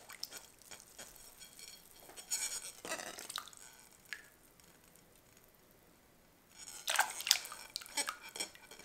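Sugar poured from a ceramic bowl into a pot of hot tea: soft trickling and pattering with light clicks and scrapes of the bowl, in two short spells with a quiet pause between them.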